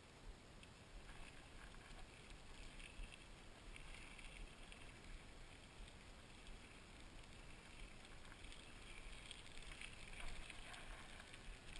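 Faint, steady wind noise and trail rumble picked up by a GoPro on a moving mountain bike.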